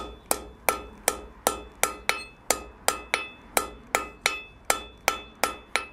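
Hand hammer striking a red-hot bar hard on an anvil in a steady rhythm of about three blows a second, each blow leaving a short metallic ring. The smith is rolling the thin flattened end of the bar into the socket of a forged arrowhead.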